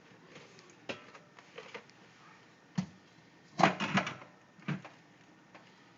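Soda cans knocking and clinking against each other and the refrigerator shelves as they are put in: a few scattered clicks, then a quick cluster of knocks about three and a half seconds in.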